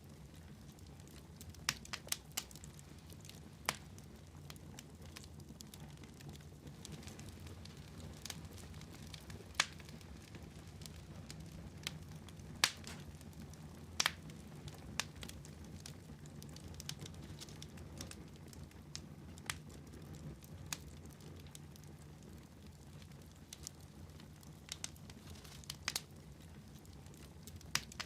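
Fire burning in a fireplace: sharp crackles and pops at irregular intervals, roughly one every second or two, over a low steady rumble.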